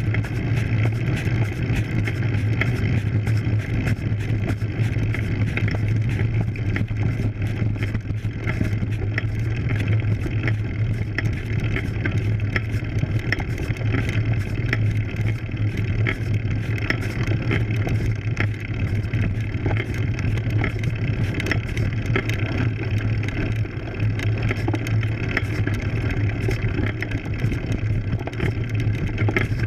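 Road bike rolling up a rough dirt road, heard through a camera mounted on the bike: a steady low hum with constant rattling and ticking from the tyres and the mount.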